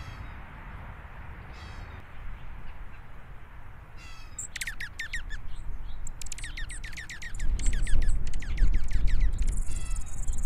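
Dark-eyed juncos calling in rapid twittering runs of high, quickly falling notes, starting about halfway in and running in bursts to the end. A low rumble comes in during the second half, over the calls.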